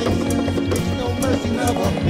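Instrumental passage of a song: a fast, steady bass pulse under a regular beat and melody.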